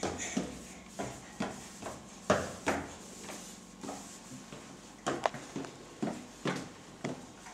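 Irregular short taps and knocks, a toddler's unsteady first steps in small hard-soled shoes on the hallway floor, coming in uneven clusters.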